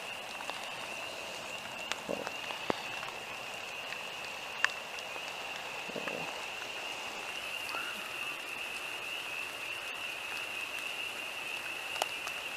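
Rain falling steadily, with scattered ticks of drops, and a steady high-pitched tone running underneath.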